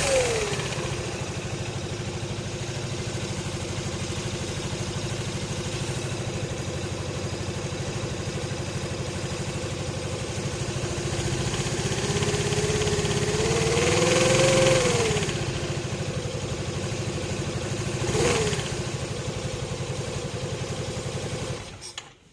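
Kymco Xciting 400 scooter engine idling steadily with a thin whine that rises and falls with its speed. It is given a slow rev about twelve seconds in and a short blip a few seconds later, then is switched off near the end. The owner presents this as an abnormal engine noise.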